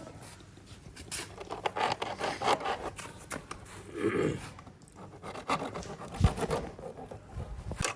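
Saw blade worked back and forth by hand, cutting through a part in a run of irregular rasping strokes.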